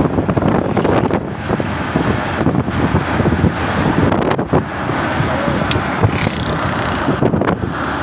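Wind buffeting the microphone of a moving vehicle, mixed with steady road and engine noise.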